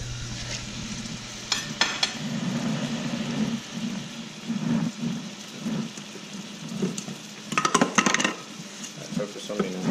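Smooth pufferfish fillets sizzling gently in olive oil in a stainless steel frying pan. A few short clicks of metal utensils against the pan come about 1.5 and 2 seconds in, and again around 7 to 8 seconds.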